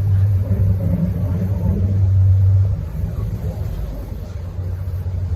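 Low, steady engine rumble with a strong hum that eases a little about halfway through.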